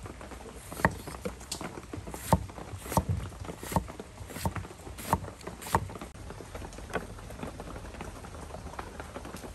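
Knife slicing through tomatoes and knocking on a wooden chopping board: a run of sharp taps roughly one every two-thirds of a second, stopping about two-thirds of the way through.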